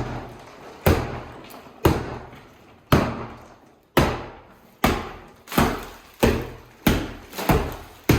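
Hammer blows on a plaster wall, knocking the old plaster loose from the wood lath behind it: about ten heavy strikes, roughly one a second, coming a little faster near the end.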